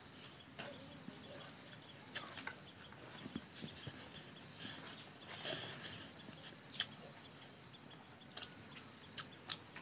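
Quiet eating sounds: scattered small clicks and smacks from fingers picking at fried fish and rice and from chewing, over a steady high-pitched cricket-like hum.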